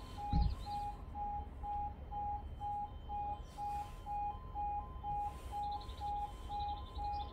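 Railway level crossing warning alarm sounding: a steady pulsing two-note tone about twice a second. Birds chirp over it, and there is a brief low thump near the start.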